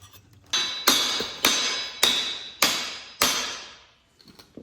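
A hammer striking a metal part six times, about twice a second, each blow ringing on briefly.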